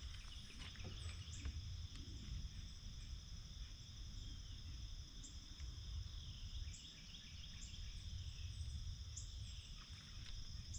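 A steady, high insect chorus in two even bands, with a low rumble underneath and a few short, high chirps scattered through it.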